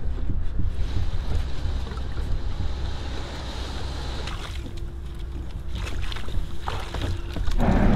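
Hobie Pro Angler 14 kayak being pushed off the sand into shallow water, its hull sliding and water sloshing, with wind rumbling on the microphone. A few light knocks near the end as the angler climbs aboard.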